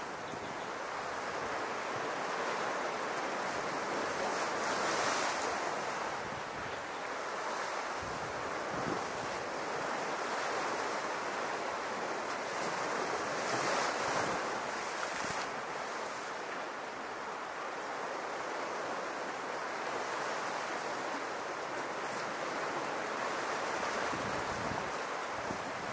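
Small Mediterranean waves washing against the rocks of a cove in a steady surf hiss that swells louder twice.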